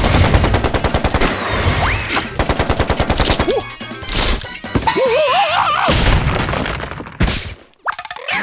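Cartoon machine-gun sound effect: a rapid string of shots for the first few seconds, with music under it. Then come wavering, squeaky cartoon cries about five seconds in, and a short burst near the end.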